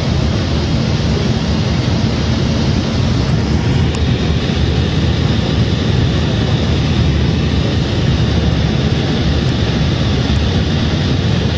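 Dodge Challenger SRT-8 cruising at highway speed: a steady rumble of engine, tyres and wind heard from inside the car.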